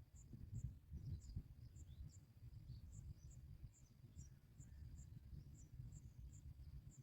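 Faint chirping of a cricket: short high chirps repeating about twice a second, over a low rumbling background noise.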